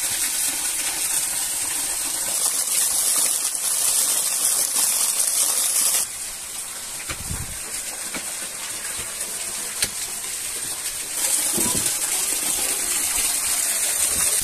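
Steady hiss of rushing water, dropping abruptly in level about six seconds in and rising again about eleven seconds in.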